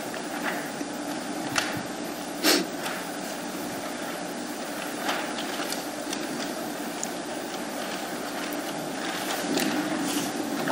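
Steady room hum of a meeting chamber heard through the sound system, with a few faint knocks and rustles. A sharper knock about two and a half seconds in is the loudest thing.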